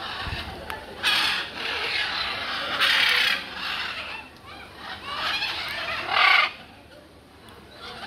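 Macaw parrot squawking: a series of loud, short calls, the loudest about a second in, about three seconds in and just after six seconds.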